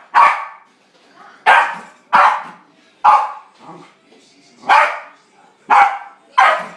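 Corgi barking repeatedly at a dishwasher: sharp, loud barks coming about once a second, with short quiet gaps between them.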